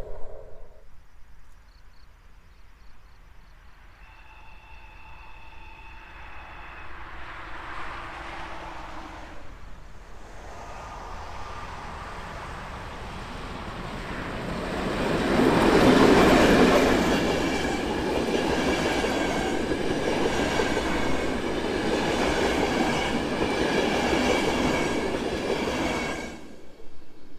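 A train hauled by a Czech diesel locomotive approaches and passes. It starts faint, grows to its loudest a little past halfway, and keeps running loud and steady with rail noise until it cuts off suddenly near the end.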